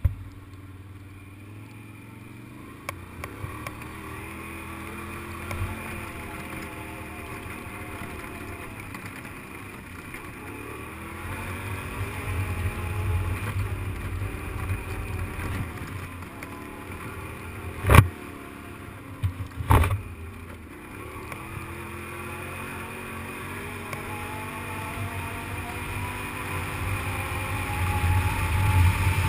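Quad bike (ATV) engine running over a rough field, its pitch rising and falling with the throttle and climbing near the end, with wind rumbling on the microphone. Two sharp knocks stand out about two-thirds of the way through.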